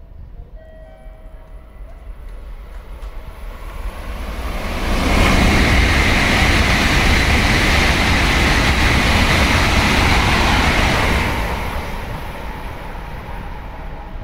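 Tokaido Shinkansen train passing through the station at speed. A rush of wheel and air noise builds over the first few seconds, is loud for about six seconds, then fades away.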